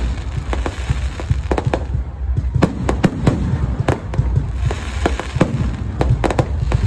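Fireworks going off: many sharp bangs and cracks at uneven intervals, over a steady low rumble.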